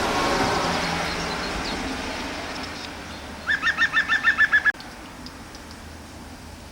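Bird song recording: faint high chirps over a fading hiss, then a loud run of about nine quick, identical repeated notes that cuts off abruptly.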